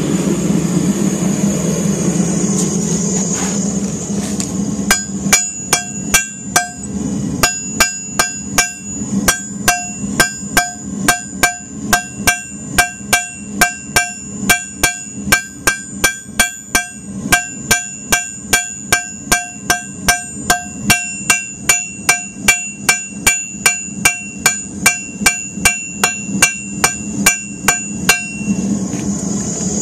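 Hand hammer striking hot 3/16-inch mild round steel on an anvil, drawing down the end to a taper. The blows come at a steady pace of about two a second for over twenty seconds, each with a bright metallic ring, and they start about five seconds in. A steady hum runs underneath.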